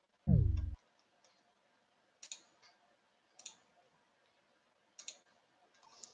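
A short tone, about half a second long, falling in pitch, then three soft clicks spread a second or more apart as presentation slides are clicked through on the computer.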